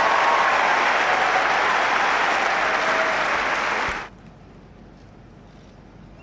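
Tennis crowd applauding after a point. The applause cuts off abruptly about four seconds in, leaving only faint, hushed crowd background.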